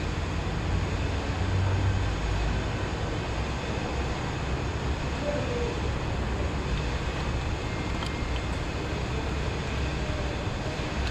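Steady low mechanical rumble with a hiss over it, unchanging throughout.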